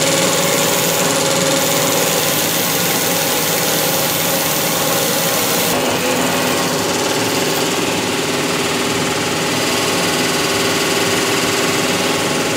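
Steady drone of an electric roller machine running as a sheepskin is worked against its rollers, with a slight change in tone about six seconds in.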